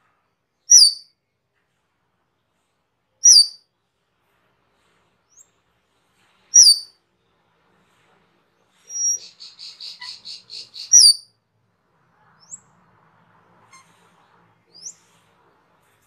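Asian glossy starling (cucak keling) calling: four loud, sharp, short whistled notes about three seconds apart, with a rapid chattering trill of about eight notes a second just before the fourth. A few faint short notes follow near the end.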